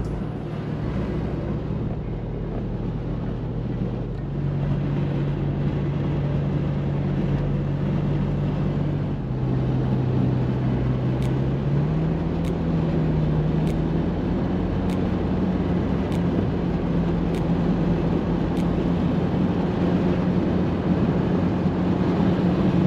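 Inside a car's cabin at highway speed: steady road and wind noise, with a low hum that steps up and down in pitch a few times.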